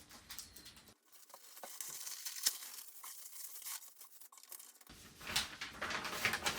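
Paper rustling and crinkling as folded instruction sheets are handled, with a few light taps, growing louder about five seconds in.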